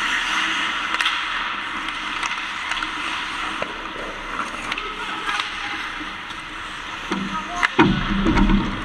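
Ice hockey play in an ice rink: skate blades scraping and carving on the ice, with scattered sharp clacks of sticks and puck. Near the end comes a louder cluster of low thumps and scrapes close by.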